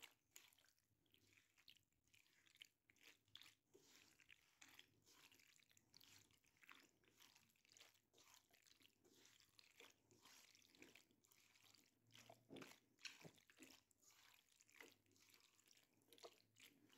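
Near silence, with faint scattered soft clicks and squishes of a silicone spatula stirring sauced macaroni in a pan. A few are a little louder about two-thirds of the way through.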